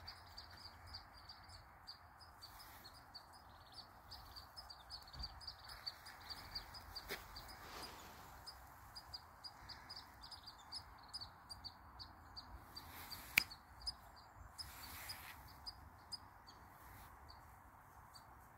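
Small birds chirping over and over, short high chirps several a second, above a faint steady background hiss. A single sharp click about thirteen seconds in.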